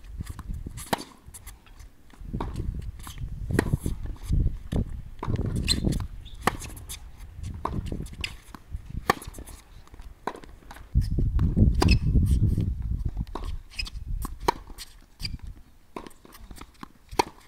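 Tennis baseline rally on a hard court: sharp pops of racquets striking the ball and the ball bouncing, with shoes moving on the court. A low rumbling noise runs under it and swells about two-thirds of the way through.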